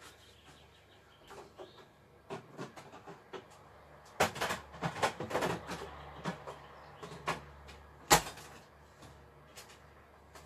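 Scattered clicks and clatter of kitchen things being handled and set down, with a busier run of knocks about four seconds in and one sharper knock about eight seconds in.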